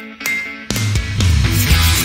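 Background music: single picked guitar notes, then about two-thirds of a second in a loud full rock band comes in with heavy guitar and a strong bass line.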